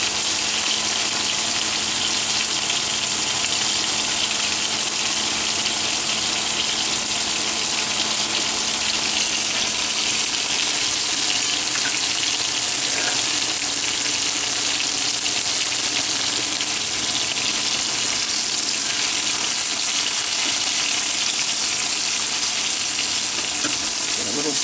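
Flour-dredged veal cutlets frying in vegetable oil and butter in a pan: a steady sizzle.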